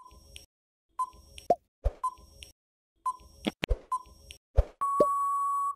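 Countdown-timer sound effect: a short electronic blip once a second, with sharp popping clicks in between. It ends in a steady, held beep for about the last second.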